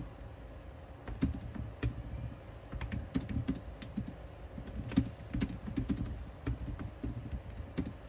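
Typing on a compact keyboard with round keycaps: an irregular run of key clicks, with a brief lull about four seconds in.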